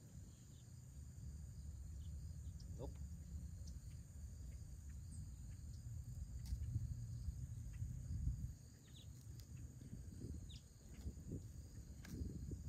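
Steady high chirring of insects, with a low rumbling noise underneath and a few faint short chirps in the second half.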